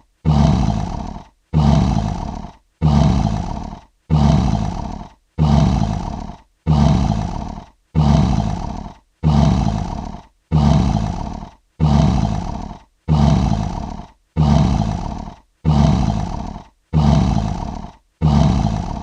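Lion roar sound effect: one short roar repeated back to back about fifteen times, roughly once every second and a quarter. Each roar starts abruptly, fades out, and stops in a brief silent gap before the next.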